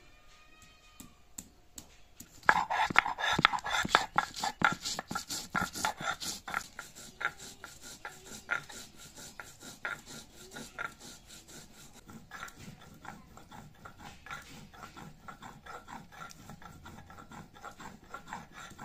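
A stone roller rubbed back and forth on a flat grinding slab (sil-nora), grinding ginger and cumin into a wet paste. It is a rhythmic scraping of two or three strokes a second that starts about two seconds in, loudest at first and then softer as the paste grows smooth.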